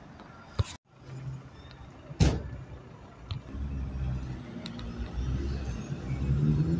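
Road traffic on a city street: vehicle engines running past, one accelerating with its engine note rising and getting louder toward the end. A sharp knock sounds a little over two seconds in.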